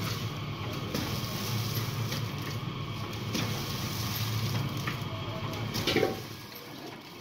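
Vertical form-fill-seal salt packing machine running: a steady motor hum under an even hiss, with occasional light clacks from its mechanism and a louder clunk about six seconds in, after which it goes quieter.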